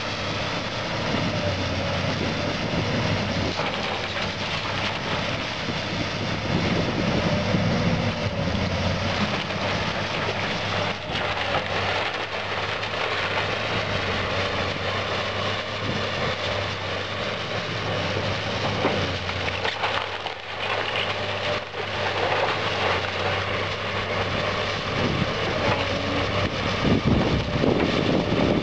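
Link-Belt tracked excavator's diesel engine running steadily while its bucket tears into a wooden house, with wood splintering and debris crashing down. Several sharp cracks come in the middle, and the crashing grows louder near the end.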